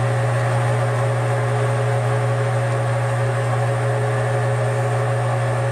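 Metal lathe running at a steady speed, a constant low hum with a steady whine, as the cutting tool turns the end of a steel hydraulic fitting.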